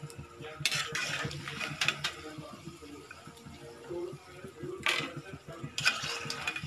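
A metal ladle scraping and clinking against a black iron kadhai as fried batata vadas are scooped out of the oil, in a few sharp bursts, over the steady crackle of the frying oil.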